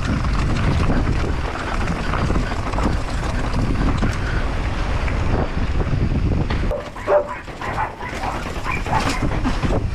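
Wind buffeting the camera microphone as a mountain bike rides at speed. About seven seconds in the wind noise drops and a dog barks several times.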